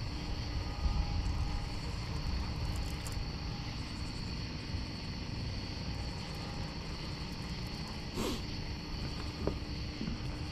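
Steady outdoor night ambience on the water: a low rumble, with night insects keeping up a constant high-pitched drone and a faint steady hum beneath.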